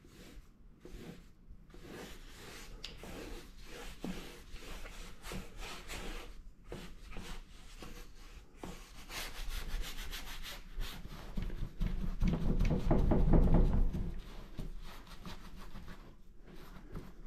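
Paintbrush scrubbing acrylic paint onto paper over a board, a series of rubbing back-and-forth strokes that come fastest and loudest about three quarters of the way through.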